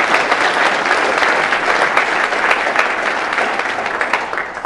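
Audience applauding, a dense, steady patter of many hands clapping that thins out near the end.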